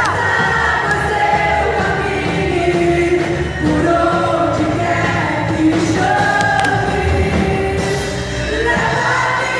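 Worship group singing a gospel praise song together in long held notes, over steady instrumental backing.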